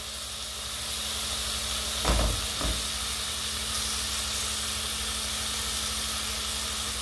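Filet mignon searing in hot fat in a pan, a steady sizzle. Two brief knocks come about two seconds in.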